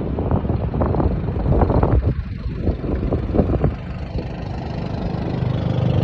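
Strong gusting wind buffeting the microphone in irregular surges for the first few seconds, over the low rumble of a car on the move, which then carries on more steadily.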